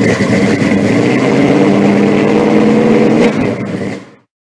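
Car engine running steadily with a deep rumble, then fading out to silence about four seconds in.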